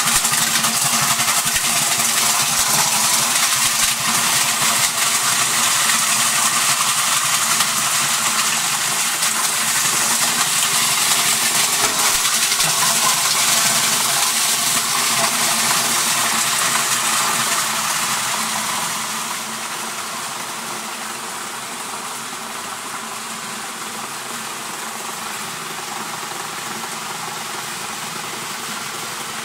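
Wanner 20.20 slow-speed plastic grinder, with a 4 kW motor and reduction gear, chopping clear polystyrene CD cases: a loud, dense crunching of plastic being cut over the steady hum of the drive. About nineteen seconds in the noise falls away to a quieter, steadier running sound as the load is ground through.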